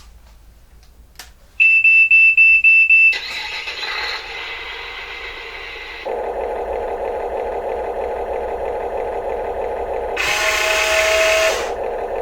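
RC construction models: a fast string of loud, high electronic beeps about a second and a half in, then a small electric motor running with a steady buzz from about six seconds in, with a short hiss near the end.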